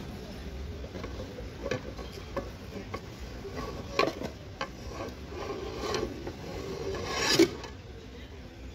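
Tefal Delight frying pans being handled on a shop shelf: a few light knocks and clatters as the stacked pans are shifted, then a louder rubbing scrape about seven seconds in as one is pulled out of the stack.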